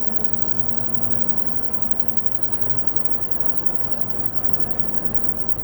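Urban street traffic noise with a steady low hum of an engine running nearby.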